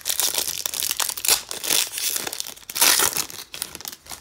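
Foil wrapper of a 2018 Optic football card pack being torn open and crumpled by hand: a run of crackling and crinkling, loudest in a few bursts through the middle.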